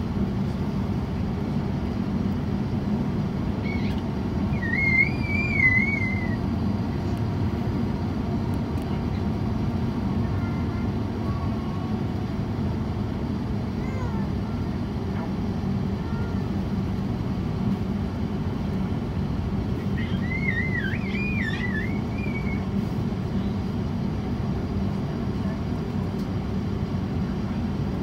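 Steady cabin rumble of an Airbus A350-900 taxiing on idle power from its Rolls-Royce Trent XWB engines. Twice, about four seconds in and again about twenty seconds in, a short, high, wavering cry sounds over it, the first one the loudest.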